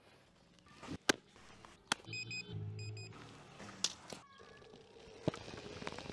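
A few sharp clicks, then two short electronic beeps with a low hum about two seconds in, from the electric inline skates' electronics powering up. From about five seconds in, the skate wheels roll on asphalt, the noise growing as he skates away.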